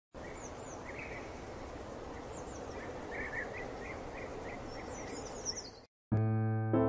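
Birds chirping over a steady hiss of outdoor ambience: scattered short chirps, a run of them in the middle and a quick burst of high twitters near the end. The ambience cuts off just before the end, and a sustained electric piano chord begins.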